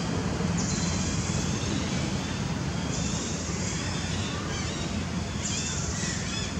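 Outdoor background noise: a steady low rumble, with a high buzzing that starts and stops three times, each stretch about a second long, and a few faint chirps near the end.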